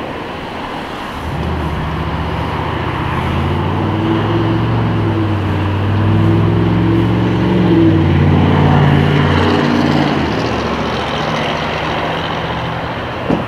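A low engine hum swells in about a second in over steady traffic noise. It is loudest midway and fades out near the end.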